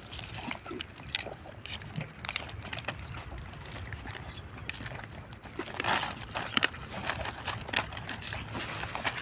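Puppies eating scraps off a plastic tarp: irregular clicks of chewing and crunching mixed with crinkles of paws and muzzles on the plastic, busiest about six seconds in.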